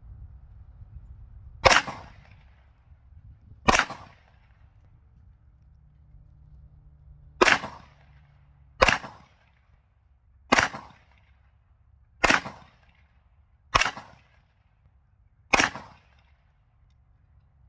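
A 10mm pistol firing eight shots: two about two seconds apart, a pause of nearly four seconds, then six more at roughly one-and-a-half to two-second intervals, each a sharp crack with a short echo.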